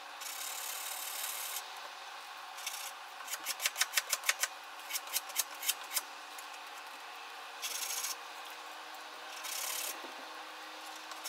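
Hand sanding of a steel knife blade with 500-grit sandpaper. A long rub comes first, then a fast run of short back-and-forth strokes, a few slower strokes, and two more rubs near the end.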